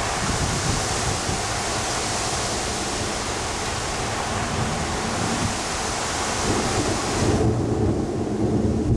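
Thunderstorm: a steady hiss of rain under slow rolling thunder, the rumble deepening and growing louder over the last couple of seconds.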